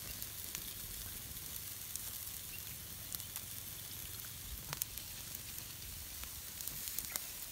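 Marinated chicken pieces sizzling on a wire grill over a charcoal fire: a low steady hiss with occasional sharp crackles.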